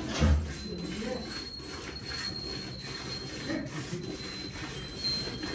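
Hand-milking a Holstein Friesian cow: jets of milk squirting into a steel pail in a steady rhythm, several squirts a second. A dull thump comes just after the start.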